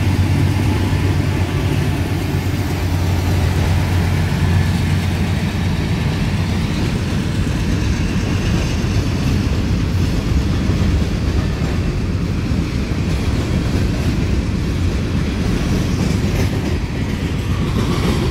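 Freight train passing close by. The trailing Norfolk Southern GE AC44C6M diesel locomotive gives a low engine drone that fades about halfway through, and a long string of loaded hopper cars keeps rolling past with a steady rumble and wheel clatter.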